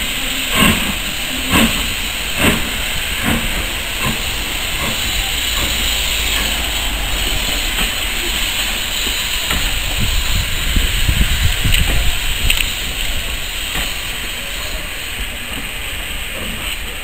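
Steam locomotive pulling away. Its exhaust beats quicken over the first few seconds, then merge into a steady hiss of steam and the rumble of carriages rolling past, loudest about two-thirds of the way through.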